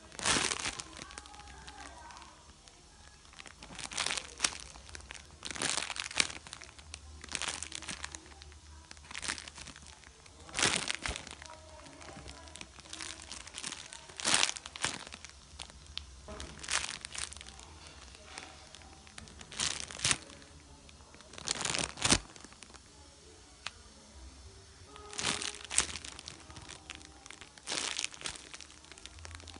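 Thin clear plastic bags crinkling in short bursts every couple of seconds as the squishy foam toys sealed inside them are squeezed by hand.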